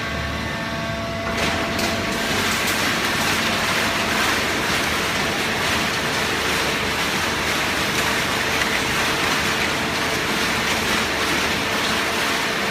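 Hydraulic paper baling press running, a steady mechanical hiss with a faint hum that comes up about a second in and holds at an even level.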